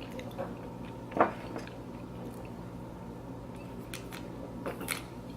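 Close-up chewing of loaded tortilla-chip nachos, with small wet mouth clicks and light crunches. There is one short, louder sound about a second in and a few more clicks near the end.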